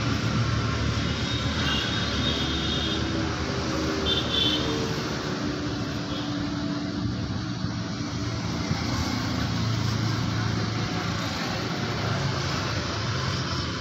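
Road traffic passing on a city road: motorcycles and cars going by with a steady engine drone, one vehicle's pitch sliding as it passes a few seconds in.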